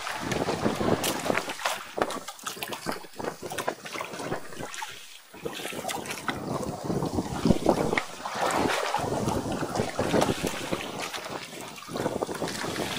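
Wind buffeting the microphone, with water sloshing and lapping against a small boat's hull and scattered small knocks and clicks.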